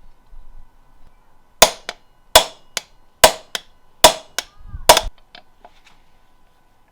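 Hammer striking a steel punch to drive a part out of a BMW ZF automatic transmission: five hard metallic blows about one every 0.8 s, each followed by a lighter rebound knock.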